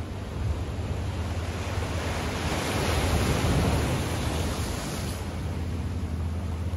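Small bay waves washing against shoreline rocks, with a hissing surge that swells about halfway through and then fades, over a steady low rumble.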